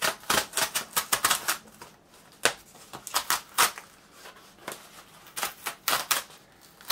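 Packaging being torn and peeled off a vinyl record by hand: a run of sharp crackles and crinkles, dense for the first two seconds, then coming in scattered bursts.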